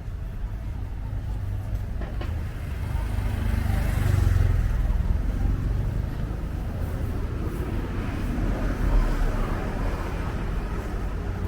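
Street traffic: a steady low rumble of road vehicles, swelling as one passes close by about four seconds in.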